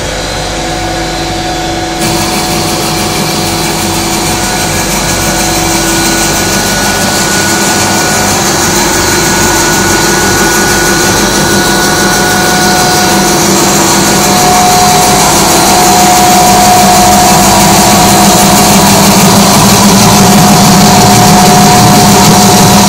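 Plastic sheet extrusion line machinery running: a loud, steady mechanical drone with a few steady whining tones. It gets louder about two seconds in and keeps rising slowly.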